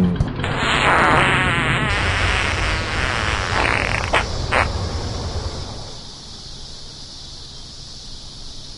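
A long, loud, sputtering fart, fluttering for about four seconds, with two short pops near the end, then fading to a steady hiss.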